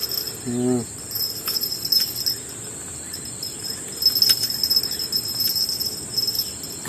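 Insects in the swamp forest keep up a steady high-pitched buzzing chorus, while a few small clicks and clinks come from a fish being handled at a mesh keep net.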